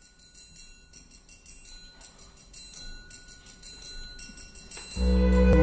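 Background music: a quiet intro of light, rapid bell-like tinkling over faint held tones, then the full music comes in loudly near the end with deep bass and sustained notes.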